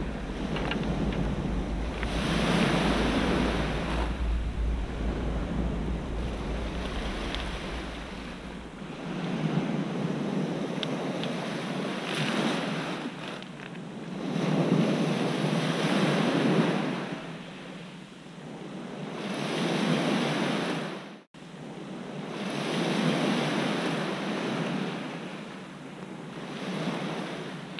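Small sea waves breaking and washing back over a pebble beach, surging every few seconds. Wind buffets the microphone with a low rumble during the first third.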